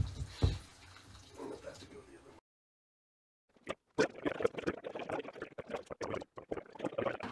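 Salt water sloshing and splashing as a clear immersion tube is tipped and drained. The sound cuts to dead silence for about a second partway through, and the splashing starts about four seconds in.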